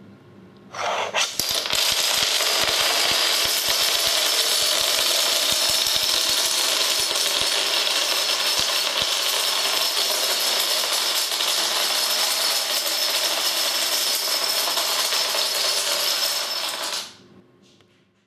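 A wall of stacked toppling dominoes collapsing: thousands of dominoes clattering and tumbling in one continuous dense rattle that starts suddenly about a second in and dies away near the end.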